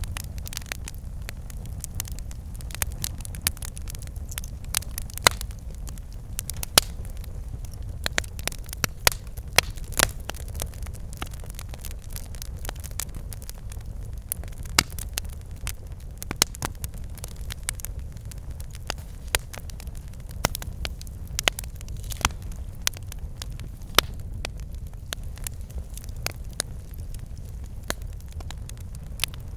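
Campfire burning: a steady low rumble of flames with frequent irregular sharp crackles and pops of burning wood.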